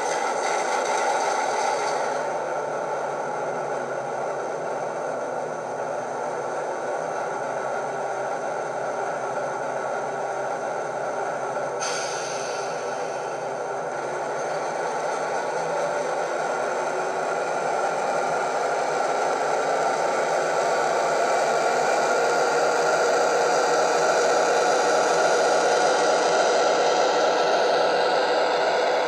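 Digital sound of a British Rail Class 58 diesel locomotive (Howes sound file on an ESU LokSound 5 decoder) playing through a small ESU passive-radiator speaker in an OO gauge model. It runs steadily under load, mixed with the rattle of the model's wheels on the track, and grows louder in the second half.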